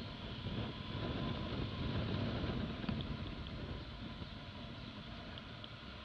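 Motorcycle riding at low speed, its engine and the wind over the microphone making a low rumble that swells about a second in and eases off after about three seconds.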